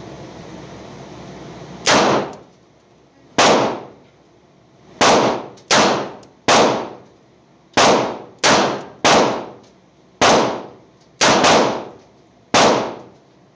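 Gunshots echoing in an indoor shooting range: about a dozen sharp reports, irregularly spaced, each with a short ringing decay. Six of them are from a Smith & Wesson Model 12 aluminum-frame .38 Special snub-nose revolver fired slow-fire; the extra reports are more than its six rounds.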